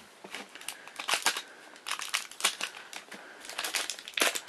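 Plastic wrapper crinkling and rustling in irregular crackles as a vinyl mystery-mini figure is unwrapped by hand.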